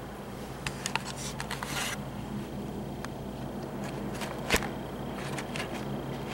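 A plastic treat ball rattling and knocking on a tile floor as a kitten paws at it: scattered light clicks, a brief rustling patch near the start and one sharper knock about four and a half seconds in, over a steady low hum.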